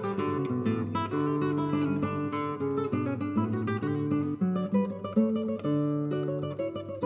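Background music: acoustic guitar played with plucked notes and strummed chords.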